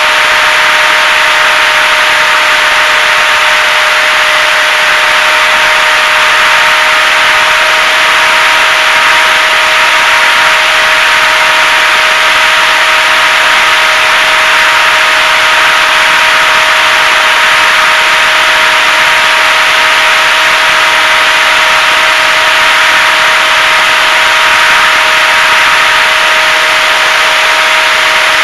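HobbyZone Super Cub RC plane's electric motor and propeller running at steady throttle, heard from a camera on the plane: a constant whine made of a few steady pitches over a loud rush of air.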